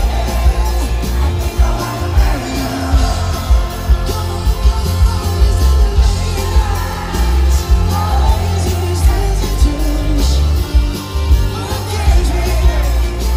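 Live pop band music with a lead vocal singing over a heavy, pulsing bass.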